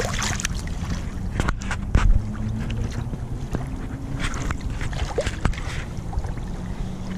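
Shallow lake water lapping and splashing at the shoreline around a landed trout, over a steady rumble of wind on the microphone. A few sharp knocks, and one dull thump about two seconds in, the loudest sound.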